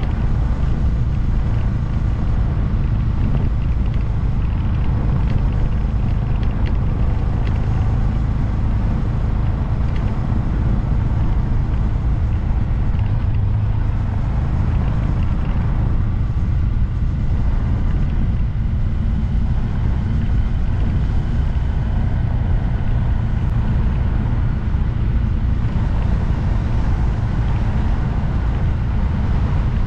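Honda Grom's 124 cc single-cylinder engine running steadily while riding, mixed with wind rumble on the microphone.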